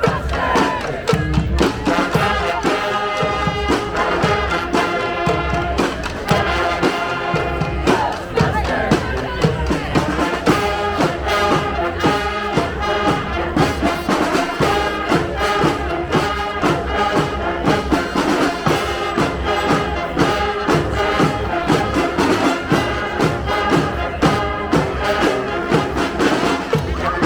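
Street brass band playing: horns carrying a tune over a steady drum beat.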